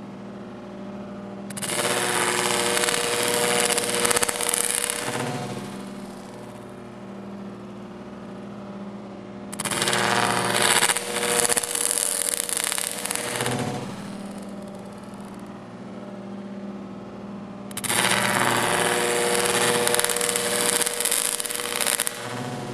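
Stick (arc) welding with a 6013 electrode: three arcs struck one after another, each crackling and sputtering for about four seconds before breaking off, at an amperage the welder calls way too cold. A steady hum carries on in the gaps between arcs.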